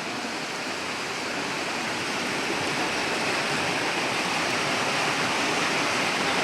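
Steady rush of a flooded river, its water noise growing slightly louder over a few seconds.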